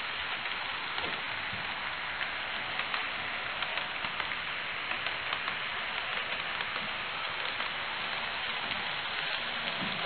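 Four-car model electric train running along the track: a steady grainy rolling hiss with many faint light ticks from the wheels.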